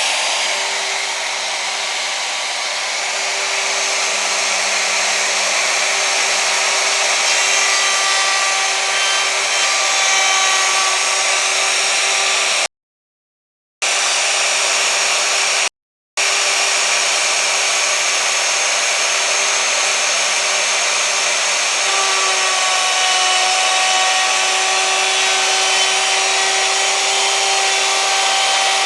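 Electric hand router running steadily at full speed while cutting a radius, a constant high whine over cutting noise. The sound drops out completely twice near the middle, once for about a second and once very briefly.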